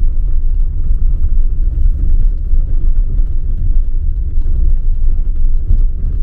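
Tata Nexon EV's tyres and suspension rumbling over a broken, unpaved road surface, heard from inside the cabin: a dense, steady low rumble with faint scattered ticks from the rough ground.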